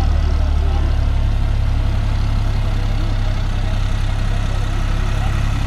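Sonalika tractor's diesel engine running steadily at a low, even speed, a deep continuous hum.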